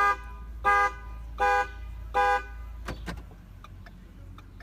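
A 2015 Ford Fusion's horn honking in short, even pulses under its anti-theft alarm, four honks about three quarters of a second apart, then it stops and a click follows about three seconds in.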